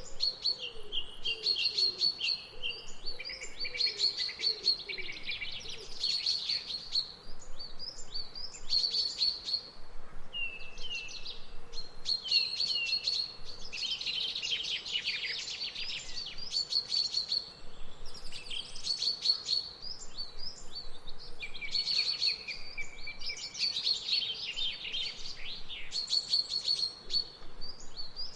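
Several songbirds singing at once in a steady dawn-chorus-like mix of rapid chirps, trills and repeated high notes, with a few soft lower calls in the first few seconds.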